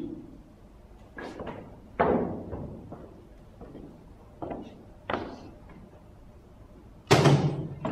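Several knocks and thumps of wooden stools and chairs being handled and set down on the floor. They are a second or so apart, and the loudest comes near the end.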